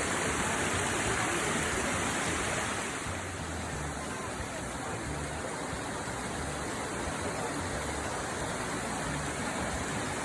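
Steady rush of water pouring down a waterfall, a little louder in the first few seconds.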